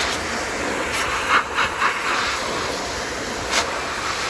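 High-velocity pet grooming dryer blowing a steady rush of air through its hose into a Samoyed puppy's thick coat, working the loose undercoat out before a bath. A few quick ticks sound over it about a second and a half in, and one more near the end.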